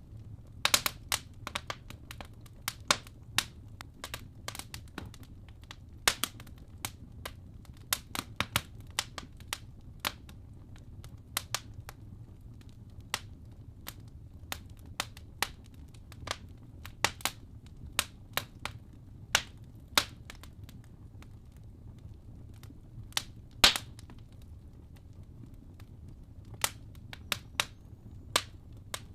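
Wood fire in a fireplace burning, with irregular sharp pops and crackles from the logs over a steady low rumble of the flames. One pop a little past the middle is the loudest.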